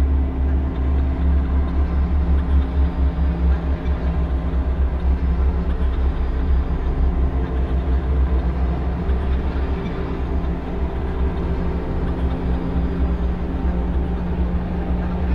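Noise music: a dense, steady low rumble with several droning tones held above it, running without a break.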